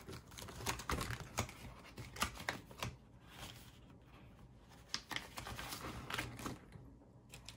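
Hands handling a clear plastic binder envelope and paper dollar bills: irregular clicks, taps and crinkling rustles as the pouch is opened and the bills are pulled out.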